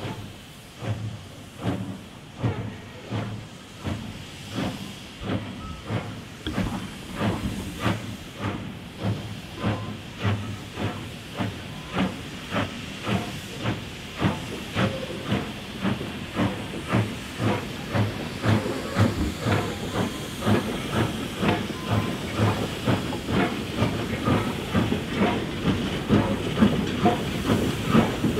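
Two coupled JS-class 2-8-2 steam locomotives working at low speed, with a steady chuff of exhaust beats. The beats quicken a little and grow louder as the engines come nearer.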